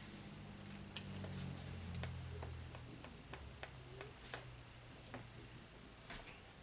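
Irregular light clicks and taps of small parts being handled as a wheel is fitted back onto an RC rock crawler, about a dozen scattered ticks. A low hum runs under them and fades out about three seconds in.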